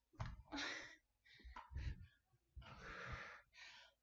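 A woman's heavy, effortful breathing while working through a high-rep strength set: several short, breathy exhales and inhales in quick succession.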